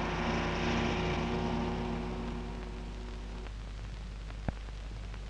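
Worn film soundtrack: steady hiss and a low hum, with several held tones fading out about three and a half seconds in, and a single sharp click about a second later.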